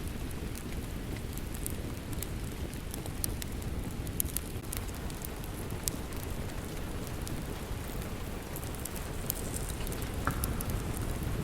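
Steady rain with a wood fire crackling, sharp pops scattered irregularly over a constant low rush.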